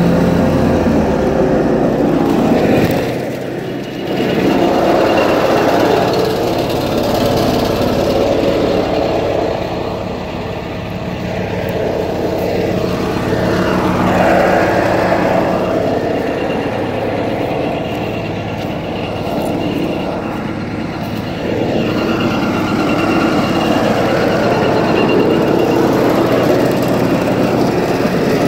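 John Deere 445 garden tractor's liquid-cooled V-twin engine running steadily under load with the mower deck engaged, cutting wet, tall grass. Its sound dips briefly a few times before picking back up.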